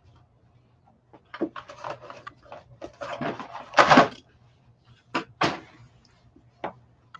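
Cardboard scraping and rustling as items are pulled out of a cardboard shipping box, loudest about four seconds in, followed by a few short sharp knocks.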